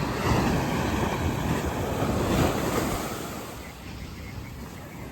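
Sea surf on a sandy beach: a wave washing in that swells over the first three seconds and then subsides, with wind on the microphone.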